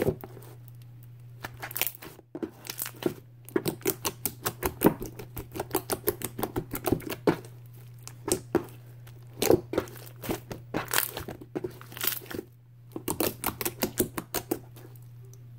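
Pink slime with large foam beads being pressed, squeezed and poked by fingers, making runs of sharp crackling pops and clicks with short pauses between them.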